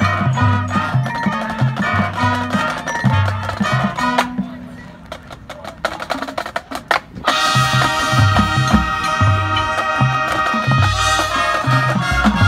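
Marching band playing its field show: full band over a pitched bass line, thinning about four seconds in to a quieter stretch of sharp percussion hits, then the horns come back in about seven seconds in with loud held chords over the bass.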